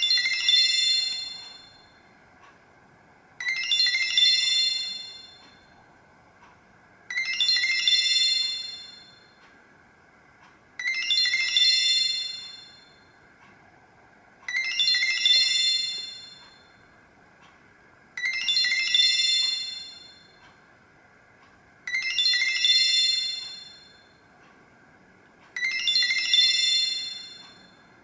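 Nokia 7310 mobile phone playing a looping chime-style tone: a short cluster of bright chiming notes that fades away, repeated about every four seconds, eight times.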